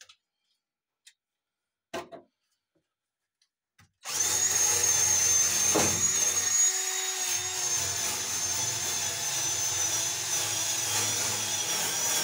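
A handheld power tool sanding bare sheet metal, a car's floor pan. It starts about four seconds in and runs steadily with a high whine to the end.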